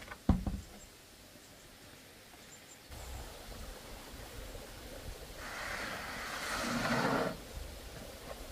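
A sharp knock as a corrugated roofing sheet is set against a wooden post, then, about five seconds in, nearly two seconds of rough scraping as a corrugated sheet is slid over the stack of sheets.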